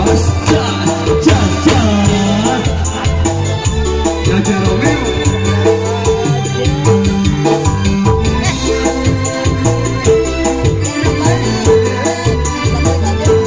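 Live band music with electronic keyboard and hand drums, a shaker rattling along the beat, and a singing voice over it.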